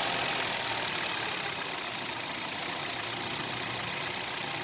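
Hyundai Solaris 1.6 four-cylinder petrol engine idling steadily just after being started, its loudness settling a little in the first two seconds. Freshly filled with Shell 5W40, it runs smoothly "like clockwork", with no bearing knock.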